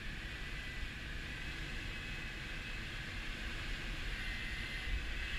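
Steady rush of air streaming past a glider's canopy in flight, heard from inside the cockpit: a low rumble under an even hiss, growing slightly louder near the end.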